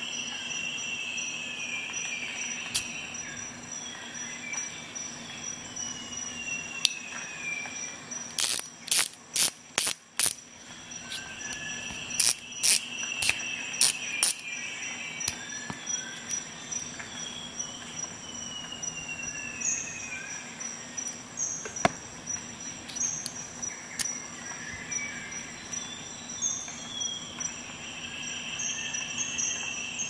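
Facom R.180 ratchet being worked back and forth, giving two quick runs of sharp metallic ratchet clicks, about six strokes and then about five, a couple of seconds apart. A few single light metal ticks and a faint steady background noise fill the rest.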